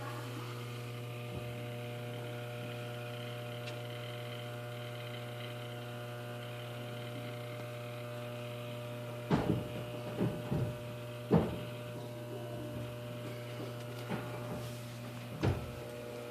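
Washing machine humming steadily with a low, even buzz. A few sharp knocks or clatters come about nine to eleven seconds in, and another near the end.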